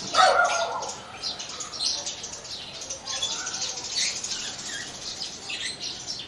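Clear plastic wrapping film crinkling while a plastic mesh car-seat cushion is handled, with light plastic clicks and rattles. There is a short squeak just after the start.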